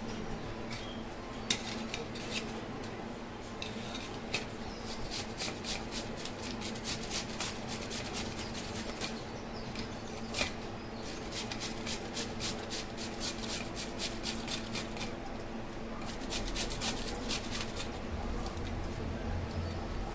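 A vegetable being grated by hand on a grater: runs of quick scraping strokes in several bursts.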